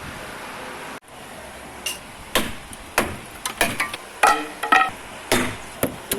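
Wind noise on the microphone, cut off about a second in, then a run of irregular sharp knocks and metallic clanks, several ringing briefly.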